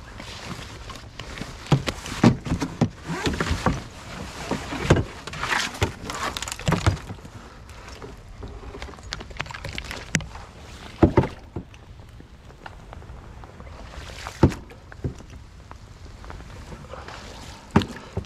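Paddle strokes splashing in the water and knocking against the kayak hull, in an irregular cluster over the first seven seconds, then a few single knocks later.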